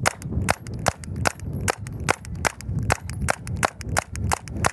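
Rapid semi-automatic 9mm pistol fire with full metal jacket rounds: a steady string of about a dozen sharp shots in quick succession, roughly three a second.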